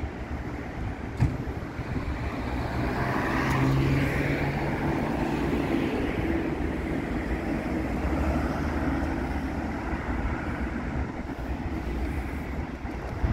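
Street traffic: road vehicles passing, with an engine hum that swells about three seconds in and fades after about nine seconds.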